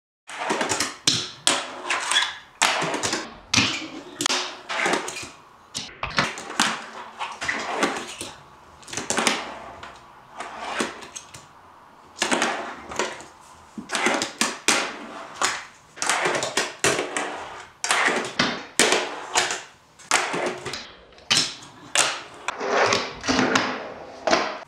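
A fingerboard (miniature finger skateboard) ridden on a tabletop and a brick ledge: irregular sharp clacks of the deck popping and landing, a few a second, with short spells of wheels rolling and grinding between them.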